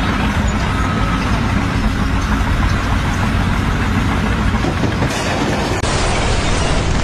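Heavy engine running with a steady low rumble and a noisy mechanical wash above it; the sound changes abruptly about five and again about six seconds in.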